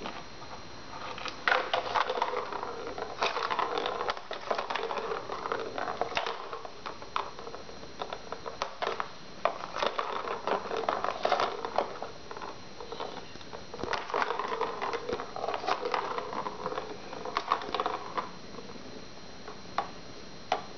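Plastic circular ball-track cat toy rattling as balls roll and knock around the track under a kitten's paw, in three bouts of a few seconds each with many sharp clicks.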